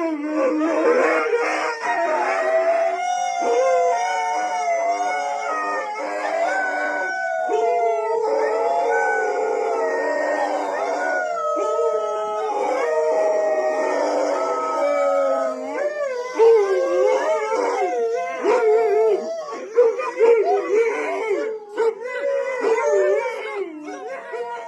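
A pack of canines howling in chorus: many long howls at different pitches overlapping, some gliding up and down. In the second half the howls turn shorter and more wavering, then fade near the end.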